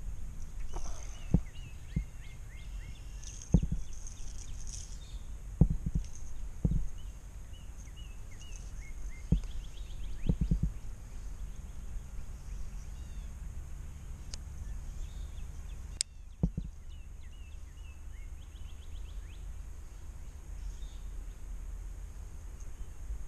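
Outdoor ambience on a breezy pond bank: wind rumbling on the microphone, scattered thumps and knocks from handling and movement, and one sharp click about two-thirds through. Small birds chirp faintly in the background.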